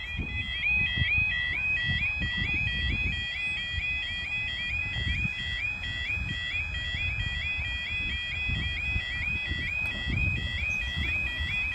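Level crossing's electronic warning alarm sounding a steady two-tone warble, about three cycles a second, signalling that the barriers are down for an approaching train. A low uneven rumble sits underneath.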